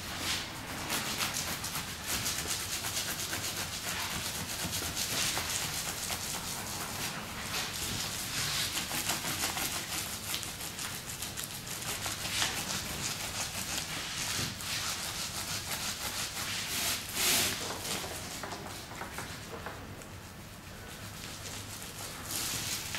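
Gloved hands rubbing and kneading wet two-part resin into a pipe patch-repair liner lying on a plastic sheet, a run of uneven rubbing strokes: the liner is being wetted out (impregnated) with resin.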